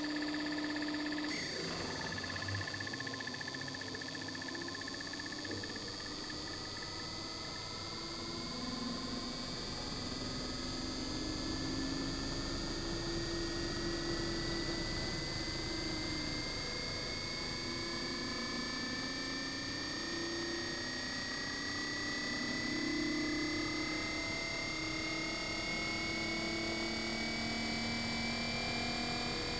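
Inverter air conditioner outdoor unit running, its compressor whine climbing slowly and steadily in pitch as the inverter speeds the compressor up, over a wavering low hum.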